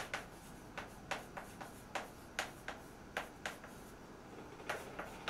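Chalk tapping against a blackboard as letters are written: a string of short, sharp clicks, irregularly spaced at a few a second, with a brief lull about two-thirds of the way through.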